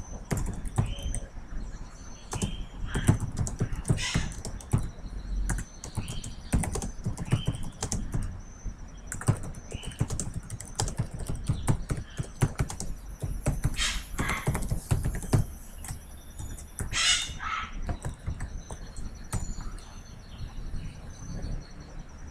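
Typing on a computer keyboard: an irregular run of key clicks as a short message is typed.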